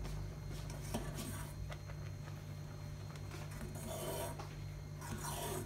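Metal ladle clinking and scraping against the inside of an aluminium pot of boiling rice porridge as it is stirred, with two longer scrapes near the end. A steady low hum runs underneath.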